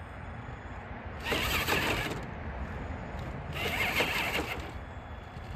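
Traxxas TRX-4 RC crawler's electric motor and geared drivetrain whirring in two bursts of throttle, each about a second long, as the truck tries to climb a concrete block.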